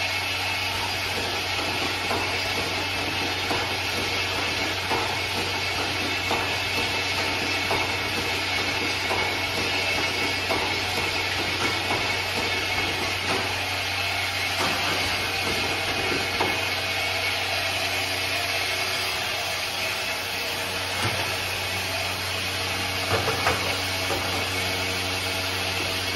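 Automatic lighter-fluid filling and capping line running: a steady machine hiss over a low hum, with frequent small clicks and knocks from the machinery.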